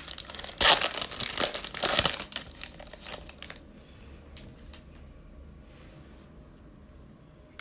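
A foil trading-card pack wrapper being torn open and crinkled, loud and crackling for about three and a half seconds. After that come only faint ticks of the cards being handled.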